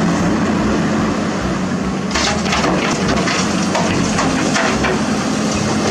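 Plastic toy excavator being moved and loaded onto a toy carrier truck: a steady hum under a noisy scraping, with crackling plastic-on-plastic knocks starting about two seconds in.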